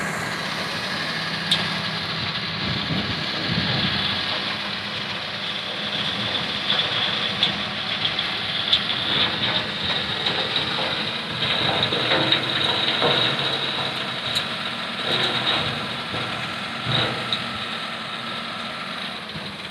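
Ashok Leyland tipper truck's diesel engine running steadily as the hydraulic hoist tips the body, with a thin high whine. From about halfway, soil and stones sliding out of the raised body give scattered knocks.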